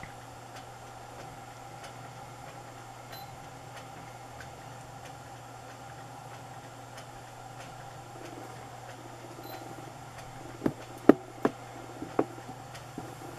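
Steady low background hum with faint regular ticks, then, from about ten and a half seconds in, four or five sharp knocks of the camcorder being handled as it swings away.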